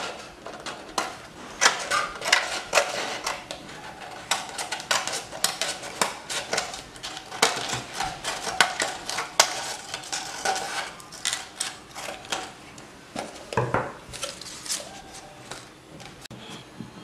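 Scissors snipping through stiff chart paper around the rim of a paper cone: a long run of quick cutting clicks with paper rustling, thinning out near the end. One duller knock about three-quarters of the way in.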